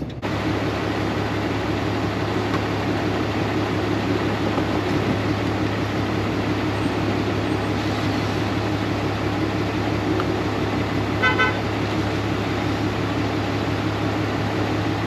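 Steady hum and hiss of a petrol pump dispensing gasoline into red plastic gas cans, with one short car-horn toot about eleven seconds in.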